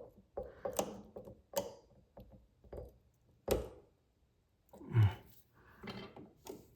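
Irregular clicks, scrapes and knocks of a small screwdriver working a faucet part loose. There is a sharp knock about three and a half seconds in and a heavier thump about five seconds in.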